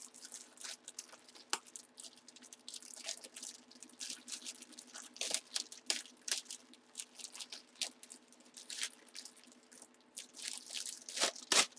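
Plastic packaging crinkling and crackling in irregular bursts as it is handled and opened, with louder crackles near the end, over a faint steady hum.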